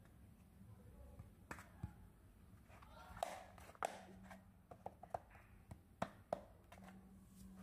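Small plastic toy wardrobe being handled and its hinged doors shut: a series of light, sharp plastic clicks and taps, most of them between about three and six and a half seconds in.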